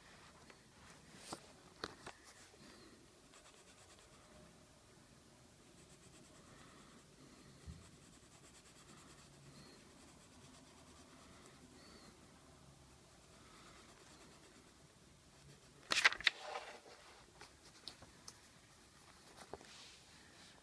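Coloured pencil scratching faintly on paper while a drawing is coloured in, with a few light taps and one louder brief rustle and clicking about sixteen seconds in.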